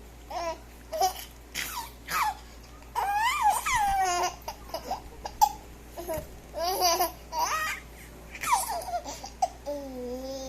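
Baby giggling and laughing in short, high-pitched bursts, with a longer laugh about three seconds in.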